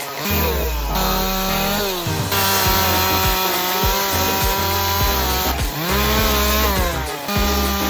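Chainsaw revving up and down as it cuts into pecan wood, over background music.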